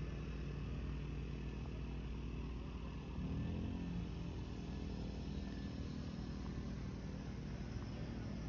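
A vehicle engine running at idle, with a brief swell and change in pitch about three seconds in.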